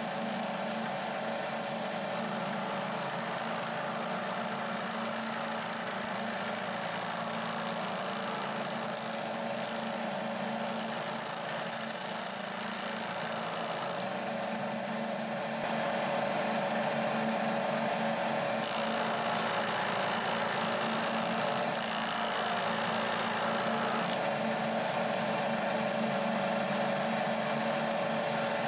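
Milling machine running with a roughing end mill cutting the teeth into a brass-coloured jaw blank. A steady machine hum with a faint high whine, a little louder from about halfway through.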